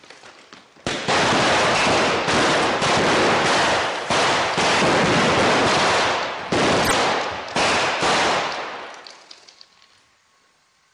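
Loud, rapid gunfire-like cracks and explosive blasts from a staged blaster shootout with pyrotechnic charges. They come in several long, dense bursts starting about a second in and fade out near the end.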